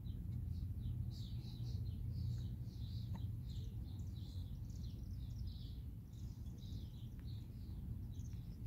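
Small birds chirping and twittering in a dense run of short, high calls, over a low steady rumble.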